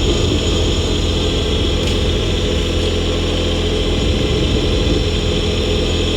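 Kioti tractor's diesel engine running steadily.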